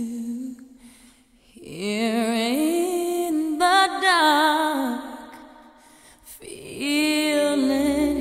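Background music: a solo voice singing slow, long-held notes with vibrato, dropping away briefly between phrases about a second in and again around six seconds in.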